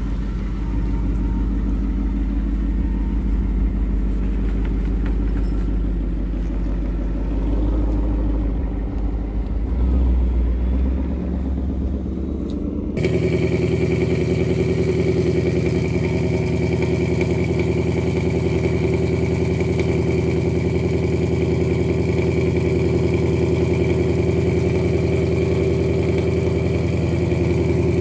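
A car engine idling. About 13 seconds in, the sound cuts abruptly to a louder, very steady engine running at a constant speed.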